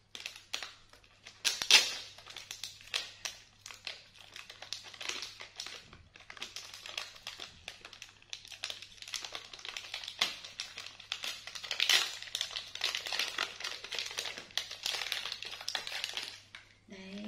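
Plastic snack wrapper crinkling and crackling in irregular handling noise as it is opened by hand, loudest about two seconds in and again around twelve seconds.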